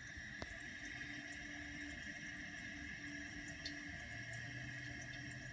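Kohler Wellworth toilet tank refilling through its fill valve: a steady hiss of water with a faint hum under it.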